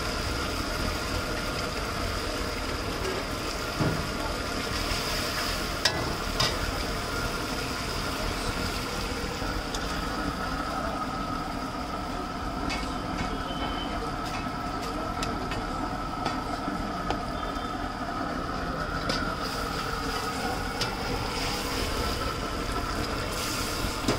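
Street-food stall cooking noise: a steady roar with a thin constant whine and the sizzle of frying food, broken by a few sharp metal clicks of a utensil about four and six seconds in.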